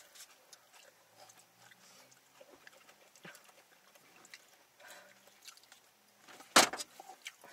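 People eating beef chow fun noodles: faint chewing and small wet mouth clicks, with one much louder sharp mouth sound about six and a half seconds in.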